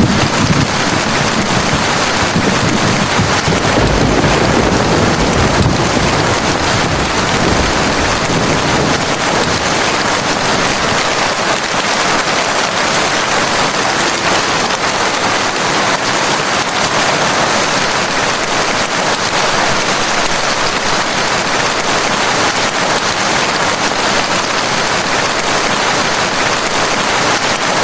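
Heavy rain falling steadily, with a low rumble of thunder over the first several seconds that fades away.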